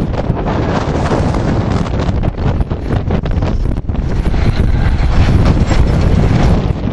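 Strong wind buffeting the microphone in loud, uneven gusts.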